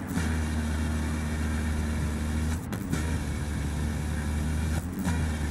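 Small electric drill with a fine bit running steadily as it bores a hole through windshield glass at the crack, cutting down toward the plastic interlayer. The motor sound briefly breaks off about two and a half seconds in and again near the end.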